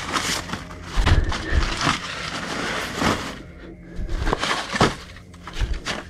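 Old dry paper rustling and crackling as a hand rummages through a trunk full of books and loose sheets, in about half a dozen separate sweeps.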